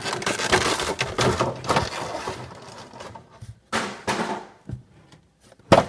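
Cardboard box and plastic packaging of a Funko Pop being handled: rustling and crinkling, thinning out after about two seconds, with a short scuff around four seconds in and a sharp click near the end.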